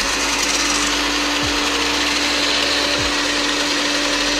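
Electric countertop blender running steadily at one speed, a loud whir with a constant motor hum, as it blends powdered milk, sugar and hot water into a thick liquid.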